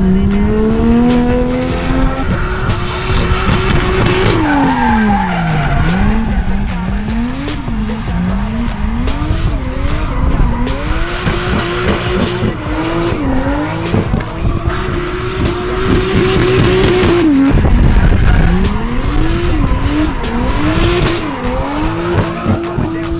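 Nissan S13's swapped-in Toyota 2JZ straight-six running at high revs while drifting. The revs repeatedly drop and climb again with the throttle, over the screech of spinning rear tyres.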